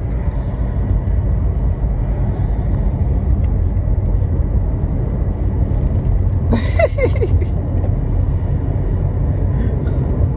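Car cabin noise while driving: a steady low rumble of engine and tyres on the road. About two-thirds of the way in, a brief bit of a woman's voice rises over it.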